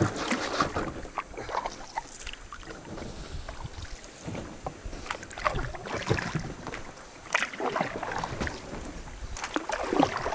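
Canoe being paddled in toward shore: water splashing and dripping off the paddle, with irregular light knocks and clicks.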